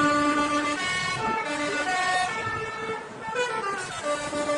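Bus 'telolet' horn, a multi-tone air horn playing a string of stepped notes like a short tune, with a brief dip a little past the middle.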